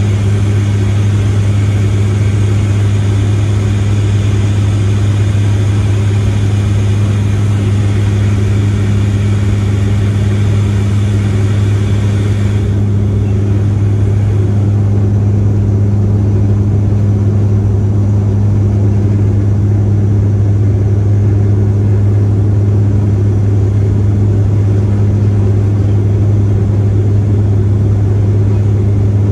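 Cabin noise of a Bombardier Q400 turboprop on approach with the landing gear down: the propellers' steady, loud low drone over a rushing hiss. The upper hiss thins out suddenly about halfway through while the propeller hum runs on unchanged.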